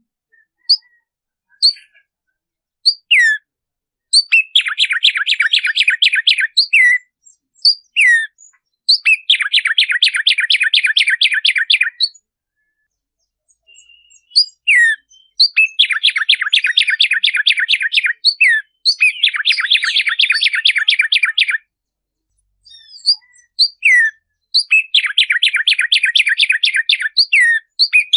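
Black-striped sparrow (tumbayegua) singing: a few sharp down-slurred whistled notes lead into a long, fast run of repeated notes, and the song is repeated several times with short pauses between.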